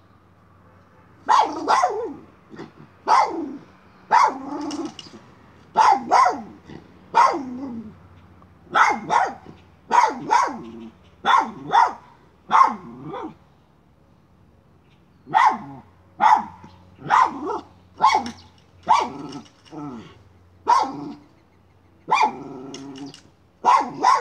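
Miniature schnauzer barking in a run of sharp single barks, about one a second, with growls between some of them, at a chipmunk hiding inside a plastic pipe. The barking starts about a second in and breaks off for a couple of seconds around the middle.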